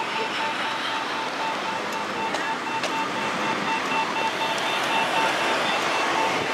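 Accessible pedestrian-crossing signal beeping in a fast, even rhythm, the signal given while the walk light is green, over steady street and traffic noise.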